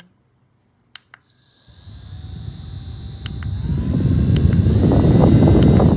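Mini handheld USB fan switched on with a click about a second in. Its small motor then runs with a steady high whine, while its airflow rushes over the microphone, growing louder over the next few seconds.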